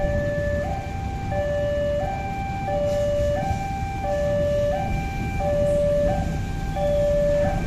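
Railway level-crossing warning alarm sounding while the crossing is closed for an oncoming train: an electronic two-tone signal switching between a lower and a higher tone about every two-thirds of a second. A low steady rumble runs underneath.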